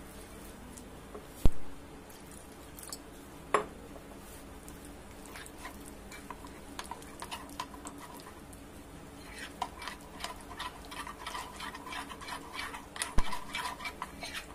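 Spoon stirring flour and water into a batter in a bowl, with a fast run of repeated clinks against the bowl in the last five seconds. There is a single sharp knock about a second and a half in.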